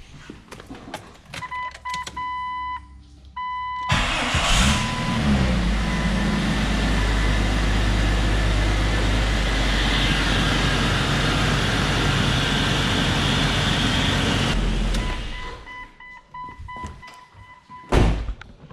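A dash warning chime sounds, then the Jeep Cherokee XJ's 4.0-litre inline-six cranks, catches and idles for about ten seconds with a steady rushing-air hiss. The owner takes the hiss for a vacuum leak that is still there. The engine is shut off, the chime sounds again, and a single thump comes near the end.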